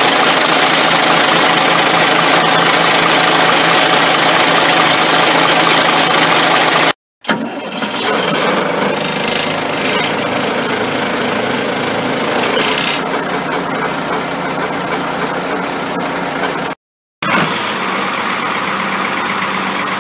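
Diesel engine of a 1996 Sides/Renault 4x4 forest fire engine running steadily at idle, heard close up at the engine bay and then by the exhaust. The sound cuts out abruptly twice for a moment.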